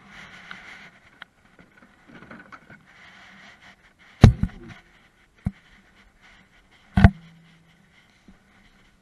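Two loud knocks about three seconds apart, with a smaller tap between, from a fishing rod and landing net being handled in a small boat; the second knock is followed by a short low ring. Faint rustling of handling runs underneath.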